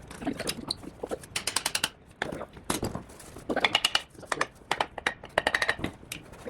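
Irregular metallic clinks and knocks of hand tools working on a Subaru EJ25 engine's bottom end, some strikes ringing briefly, in quick clusters.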